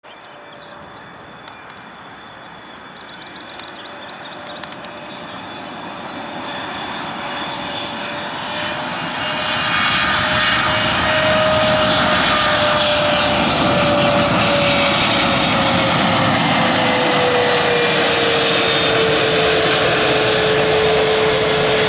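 Boeing 777-300ER's twin GE90 turbofan engines on landing approach, growing steadily louder for about ten seconds as the airliner comes in low, then holding loud. A steady engine whine drops in pitch past the halfway point as the aircraft goes by.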